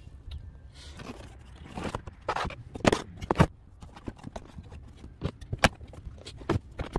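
Plastic interior trim panels of a 2005 Toyota Prius being handled and pulled loose by hand: a string of sharp clicks, knocks and scrapes, the loudest about three seconds in, over a low steady rumble.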